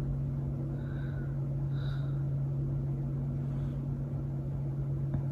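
A steady low machine hum, even in level throughout, with two faint brief higher blips about one and two seconds in.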